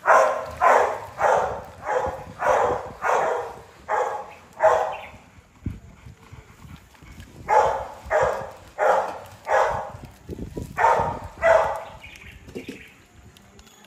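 A dog barking repeatedly, about two barks a second, in three runs: about eight barks, a pause, four more, then two.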